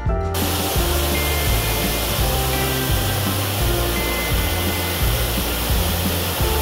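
A small waterfall rushing steadily over rocks, under a steady background of strummed guitar music; the rush comes in just after the start and stops near the end.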